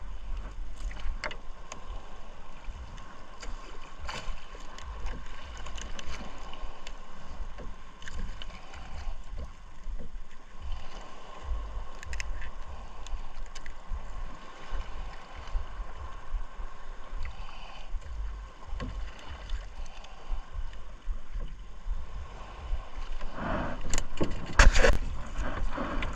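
Wet nylon fishing net being hauled hand over hand into a small wooden boat, water dripping and splashing into the hull, with small scattered knocks of the net and its catch against the boat. It grows louder near the end, with a burst of splashing and rustling.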